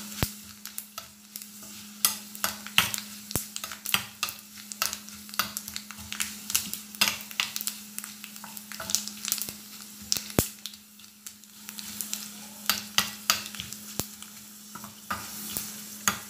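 A tempering of garlic, dried red chillies, curry leaves and fennel seeds frying in coconut oil in a small pan: sizzling with many irregular crackling pops, while a steel ladle stirs and taps against the pan. A steady low hum runs underneath.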